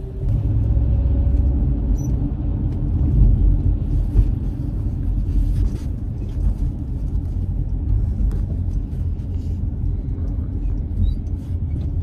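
Low, steady road and engine rumble inside a moving car's cabin, with a few faint clicks.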